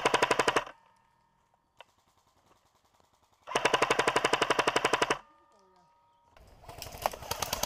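Airsoft rifle firing full-auto bursts of rapid shots, about fifteen a second: one burst ending just under a second in, a second lasting about a second and a half a few seconds later, then another rattle of rapid fire starting near the end.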